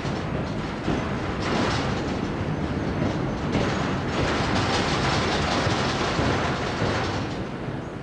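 A train running on the rails: a steady, continuous rumble of the wagons under way.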